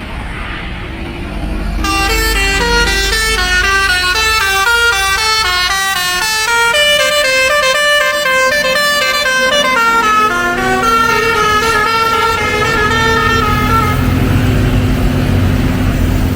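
A bus's 'telolet' musical multi-tone air horn playing a quick tune of stepped notes, starting about two seconds in and running for roughly twelve seconds, with longer held notes toward the end. The bus engine rumbles underneath.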